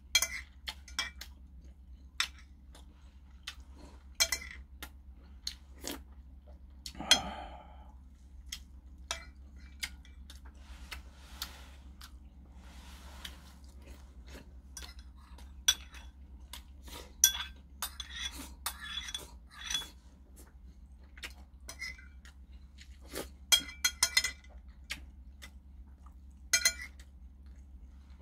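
A metal spoon clinking and scraping against porcelain bowls in many short, irregular taps, with chewing in between. A steady low hum sits underneath.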